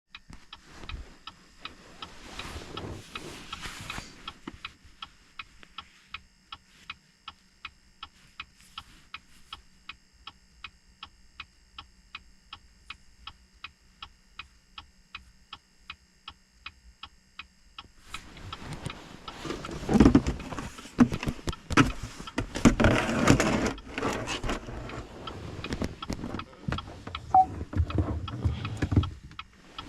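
Rapid, even ticking, a few ticks a second, over a faint steady high whine; about eighteen seconds in it gives way to louder, irregular knocking and rustling of handling.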